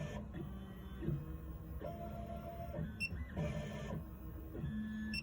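Miracle A9 key cutting machine running its calibration measurement: its motors drive the probe and carriage in a series of short moves, a printer-like whir that jumps between pitches every half second to a second, with small clicks between moves.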